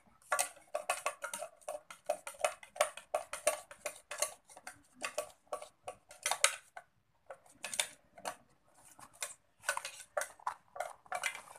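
A plastic spoon stirring sticky yellow slime in a clear plastic cup, clicking and scraping against the cup in quick repeated strokes, with a short pause about seven seconds in.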